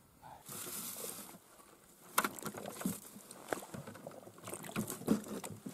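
Ice-fishing skimmer scooping slush and ice chips out of a drilled hole in river ice: wet scraping and sloshing. Irregular sharp clicks of ice start about two seconds in.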